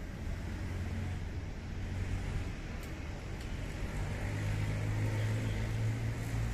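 Low, steady hum of a motor vehicle's engine running, which grows louder about four seconds in.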